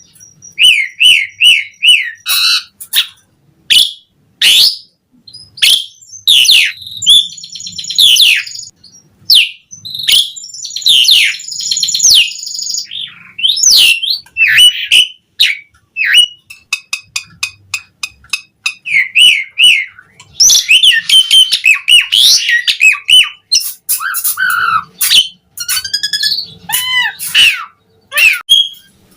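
Asian pied starling (jalak suren) singing a long, varied song: quick whistled notes, squeaky chatter and rattling clicks. Some short phrases are repeated several times in a row, and there are brief pauses between runs.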